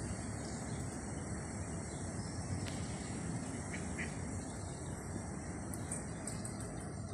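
Steady outdoor background rumble and hiss, with a few faint, brief high chirps around the middle and near the end.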